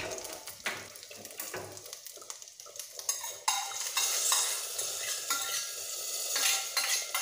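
Curry leaves and dried red chillies sizzling in hot coconut oil in a small steel tempering pan, with a few metal clinks of tongs on the pan. About three and a half seconds in, the tempering is poured into the curry in a clay pot and a louder sizzling hiss follows.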